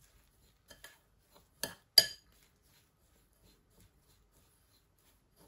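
Metal spoon clinking against a glass mixing bowl while stirring a crumbly milk-powder dough: a few light clinks in the first half, the sharpest and loudest about two seconds in.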